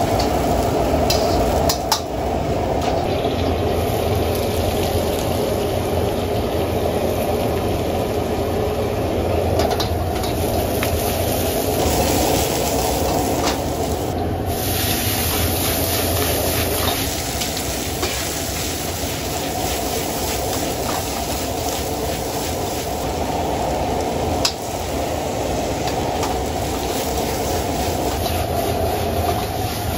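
Gas wok burner running at full flame with a steady rushing noise under a wok of sizzling stir-fry. A metal ladle stirs and scrapes in the wok and clinks against it sharply a few times.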